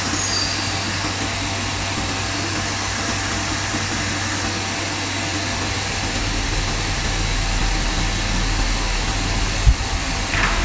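CNC router machinery running with a steady hum and rushing noise, the low rumble growing stronger a little past halfway. A single sharp knock comes near the end.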